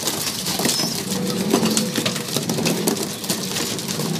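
A crowd of racing pigeons jostling around a water drinker: wings flapping and feet and bodies scuffling on the loft floor, with low cooing mixed in.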